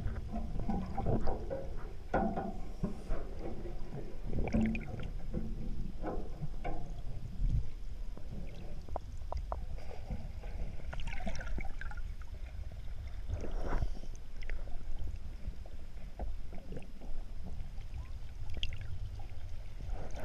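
Water sloshing and lapping around a small boat, with a steady low rumble and scattered knocks.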